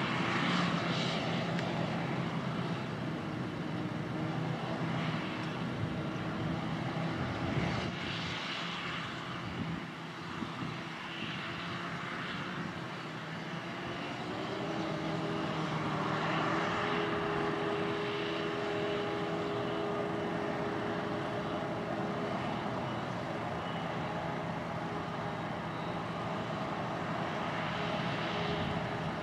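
Claas Jaguar 870 self-propelled forage harvester chopping grass for silage and blowing it into a trailer, its engine and chopping gear running in a steady drone, with the tractor pulling the trailer alongside. The pitch of the drone shifts a little about halfway through.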